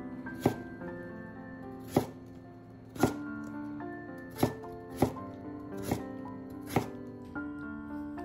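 Chef's knife chopping a peeled potato on a wooden cutting board: seven sharp cuts, spaced irregularly about a second apart, over background music.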